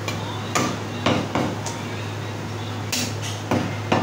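Meat cleaver chopping into a mutton leg on a thick wooden butcher's block: about eight sharp chops in irregular bursts. A steady low hum runs underneath.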